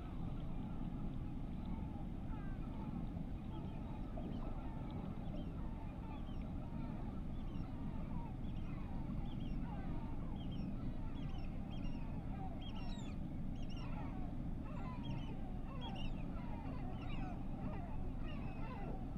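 Many birds calling at once: a dense chorus of short, falling calls that grows busier about halfway through, over a steady low rumble.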